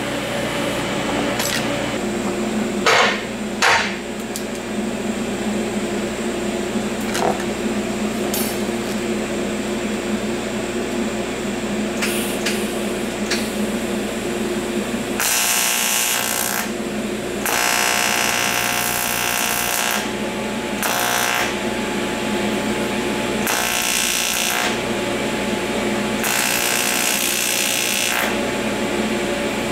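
TIG welding arc on 5356 aluminum filler rod, struck five times from about halfway through, each a harsh buzz lasting half a second to nearly three seconds, fusing two rods end to end. Before the arc strikes there is a steady machine hum with a few short knocks.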